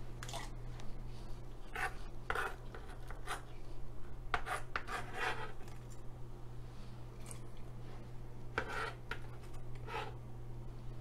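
Kitchen knife cutting and scraping scallions on a plastic cutting board, in a handful of short separate strokes with pauses between.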